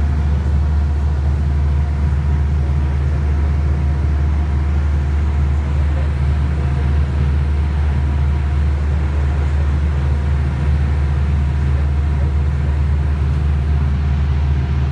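Motorboat engine running steadily while the boat is underway, a constant low hum with no change in pitch.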